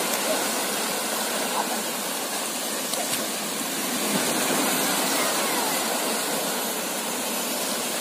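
Small waves breaking and washing through the shallows of a sandy beach: a steady rush of surf.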